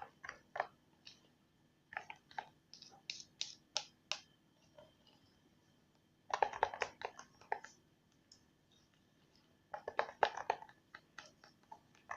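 Thick slime mixture of PVA glue being stirred with a small spatula: short sticky clicks and squelches in three bursts with pauses between.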